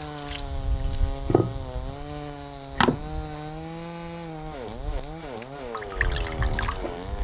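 A small motor running with a steady hum, its speed sagging and wavering about two-thirds of the way through and then recovering, with two sharp knocks in the first half.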